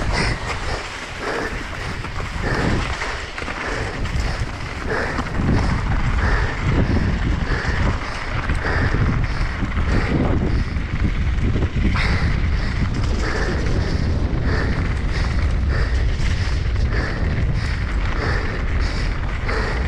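Mountain bike riding fast downhill on loose gravel and dirt: wind buffeting the microphone over tyres rolling on the stones and the bike rattling on the rough track. It gets louder about five seconds in and stays loud.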